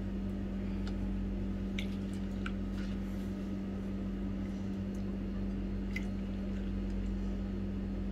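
Silicone spatula stirring a thin yogurt marinade in a glass bowl: soft liquid squishing with a few light taps against the glass, over a steady low hum.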